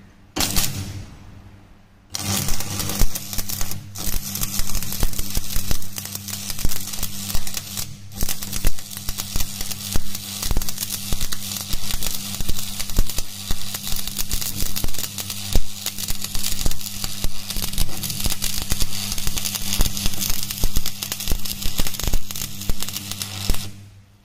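Stick (shielded metal arc) welding a fillet bead on a steel T joint: the electrode's arc crackling and sputtering steadily over a low buzz. After a short sputter at the start, the arc is struck about two seconds in and runs until it is broken off just before the end.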